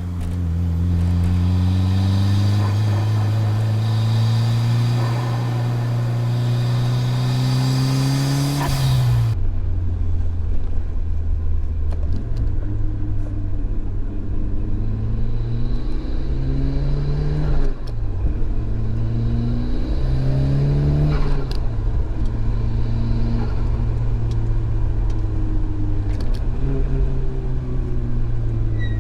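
Turbocharged 4G63 inline-four of a 1999 Mitsubishi Lancer Evolution VI accelerating, heard from the engine bay: a long steady climb in pitch, then two shorter climbs after a cut. Each of the two ends in a short sharp release as the throttle closes, the Blitz Super Sound blow-off valve venting.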